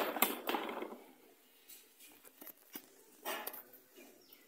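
Handling noise from the opened plastic switch housing of a stand fan and its wires: a rustling burst at the start, then a few light clicks and another short rustle about three seconds in.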